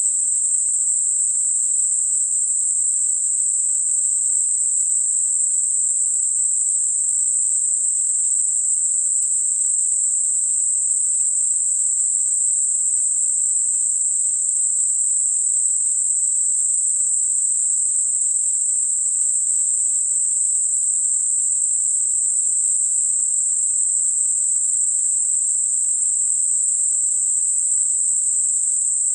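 Computer-generated narrow-band noise centred at 8 kHz with a smooth Gaussian roll-off: a steady, unbroken high-pitched hiss with no low end, made as a masker for high-frequency tonal tinnitus.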